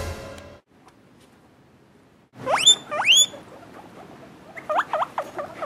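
Guinea pig wheeking: two high squeals sweeping sharply upward about two and a half and three seconds in, then a quick run of four or five short, lower squeaks near the end. A short burst of noise dies away in the first half second.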